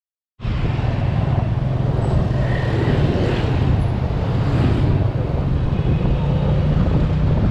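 Steady low drone of a motor scooter riding through city traffic, heard from the back seat, with road and traffic noise around it. The sound cuts in abruptly just under half a second in.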